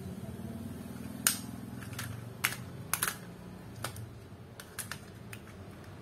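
Plastic snap clips of an Acer netbook's case clicking loose one after another as the cover is pried off the chassis. About ten sharp, uneven clicks, the loudest about a second in.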